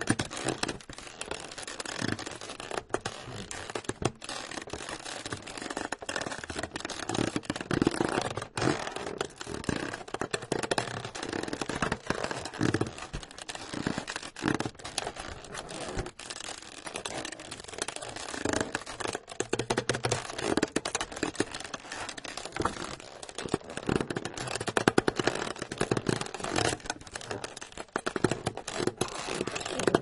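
Continuous, irregular squeaking, crunching and crackling, a dense run of scrapes and sharp crackles with no rhythm and no pause.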